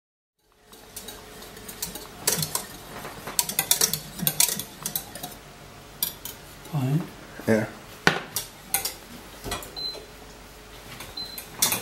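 Wire whisk clinking and knocking irregularly against a stainless-steel saucepan as a sauce is whisked, among other metal kitchen clatter.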